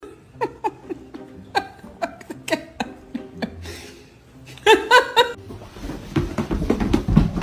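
Laughing in short bursts, each falling in pitch, with a quick run of laughter about five seconds in; a low rumbling noise starts near the end.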